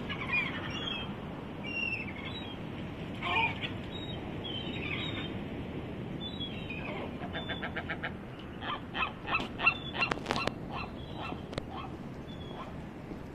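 Gulls calling: scattered short squealing cries, then a quick run of short notes about seven seconds in and a string of louder, sharp calls between about nine and twelve seconds, over steady low background noise.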